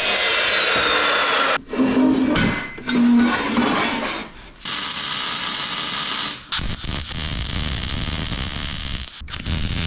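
Workshop tool noise in several short, abruptly cut segments: power-tool running and metal scraping sounds.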